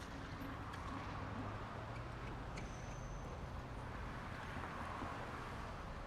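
Suburban street ambience: a steady low hum of distant traffic, with a few faint ticks and a brief high whistle about two and a half seconds in.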